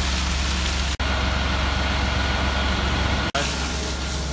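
Vactor truck's engine running steadily with a strong low hum, the truck dumping its load from the raised rear tank. The sound breaks off for an instant twice, about a second in and near the end.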